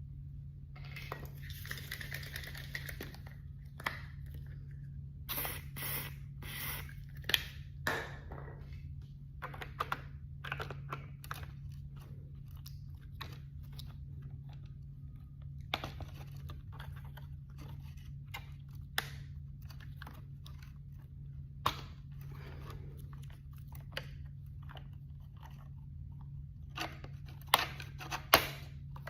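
Clicks, scrapes and rustles of hands handling a small model engine while lubricating it, with a longer rustle about a second in and a cluster of sharper clicks near the end, over a steady low hum.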